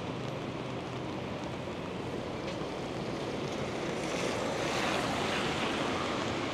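Steady hiss of rain on a wet street, growing a little louder about four seconds in.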